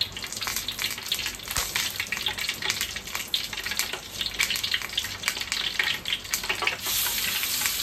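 Hand-ground chili-spice paste (bumbu ulek) frying in hot oil in a wok: a dense sizzling crackle, a little louder near the end.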